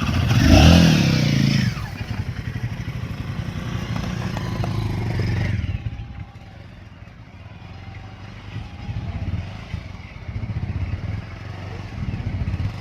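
Royal Enfield Himalayan 450's single-cylinder engine revving loudly for a moment, then running steadily at low revs; the sound drops to a quieter, duller drone about six seconds in.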